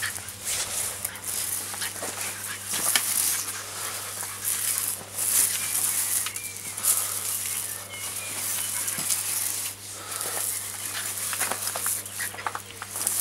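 Push broom scraping and knocking over stone paving slabs and gravel as a small dog scrabbles at it, a run of irregular scrapes and clicks.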